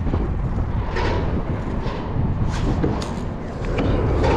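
Wind buffeting a boat-mounted camera microphone, a steady low rumble, with a few brief knocks about one, two and a half, three and nearly four seconds in.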